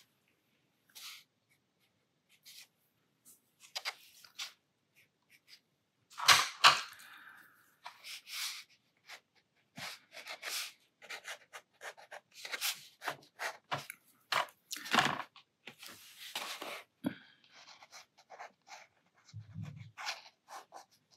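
Sakura Micron fineliner pen scratching on sketchbook paper in many short, irregular strokes, faint and sparse at first and busier from about six seconds in. A louder rustle or knock about six seconds in stands out above the pen strokes.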